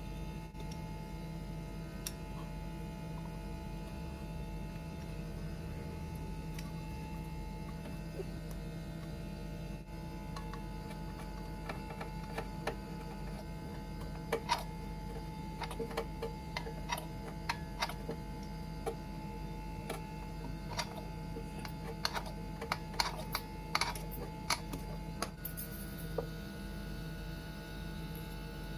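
A steady electrical hum, with a run of small sharp clicks and taps through the middle and later part.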